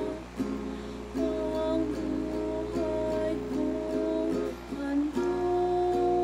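A woman singing while strumming an acoustic guitar, holding long sustained notes; a longer held note starts about five seconds in.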